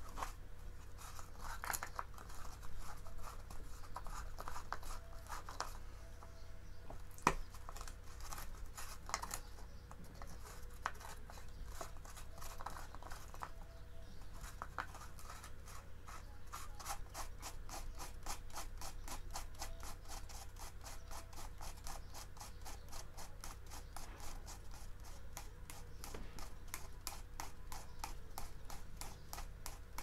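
Hands rubbing and scraping at a pedestal fan's plastic blade and hub on the motor shaft, with one sharp knock about a quarter of the way in. In the second half comes a fast, even run of small clicks, about five a second.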